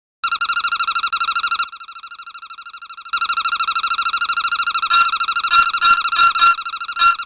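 Squeaky dog toy's squeaker giving a long, high, fluttering squeal. It drops quieter for a stretch in the middle, then comes back and breaks into a run of short separate squeaks near the end.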